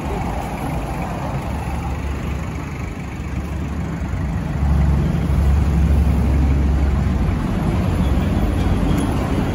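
Mazda Bongo's R2 2.2-litre four-cylinder diesel engine idling, a steady low rumble that grows louder about halfway through.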